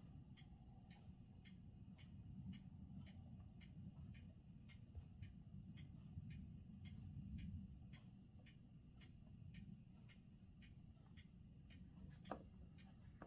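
Faint, regular ticking, about two ticks a second, over a low, steady rumble.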